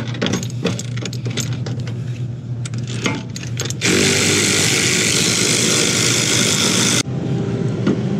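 Cordless ratchet running a bolt for about three seconds, from about four seconds in, cutting off sharply, after a stretch of clicks and clatter as it is fitted to the bolt. A steady low hum runs underneath.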